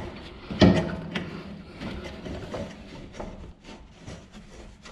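Gloved hands working a V-belt onto a mower deck pulley: a sharp knock about half a second in, then scattered small clicks and rubbing of rubber and fabric against the metal deck.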